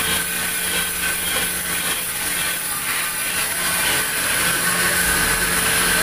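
Sawmill band saw running steadily without cutting, a constant machine hum with a steady high whine.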